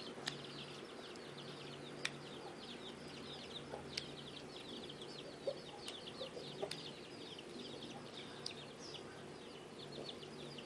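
Small birds chirping rapidly and continuously in the background, high quick downward-sliding chirps, with a few faint sharp clicks as a finger pokes and presses clear slime.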